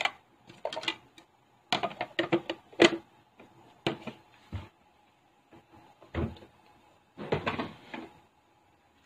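Kitchen clatter from handling containers and utensils on a countertop: a run of sharp knocks and clicks, the loudest a little before three seconds in.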